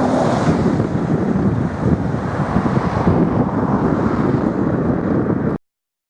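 Steady noise of road traffic passing on a busy road, with wind buffeting the microphone. It cuts off abruptly about five and a half seconds in.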